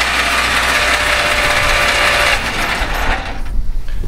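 Starter motor cranking a 1950s Ford flathead engine with its spark plugs out, spinning it over with a steady whir that stops about two and a half seconds in; a few light clunks follow. The engine turns over freely, a good sign after its starter and terminals were cleaned.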